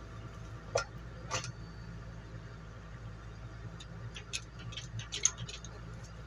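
Scattered sharp metallic clicks and knocks of tyre-changing work: two about a second in, then a quick cluster near the end. Under them an engine runs steadily with a low hum.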